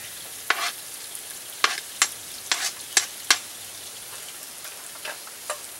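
Chopped onions sizzling steadily in hot oil in a cast-iron Dutch oven while a spoon stirs them, scraping and knocking against the pot about eight times.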